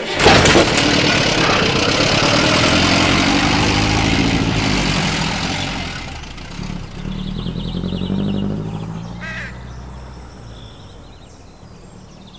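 A car engine starts and drives away, loud at first and then slowly fading into the distance as a low hum. A single short bird call comes about nine seconds in.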